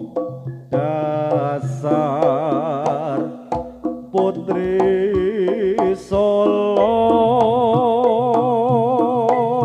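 Live Javanese jaranan music: a loud melody of long held, wavering notes rises and breaks off several times over drum strokes and struck percussion.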